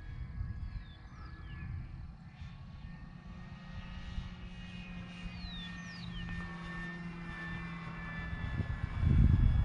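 Electric motor and propeller of a Flex Innovations RV8 G2 60E radio-controlled plane in flight, a steady whine in several tones. A loud low rumble comes in near the end.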